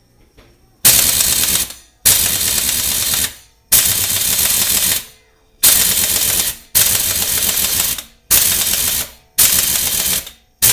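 Harbor Freight half-inch pneumatic impact wrench, modified and ported and set to maximum power, hammering on a lug nut in a series of bursts of about a second each with short pauses between. It fails to break the nut loose.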